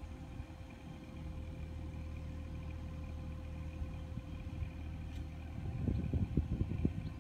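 Mini excavator's diesel engine running steadily at low revs, with a louder, uneven stretch about six seconds in.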